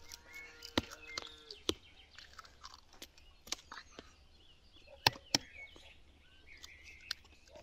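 Scattered sharp taps of eggs being cracked against a hard edge, the loudest two close together about five seconds in, with birds chirping in the background.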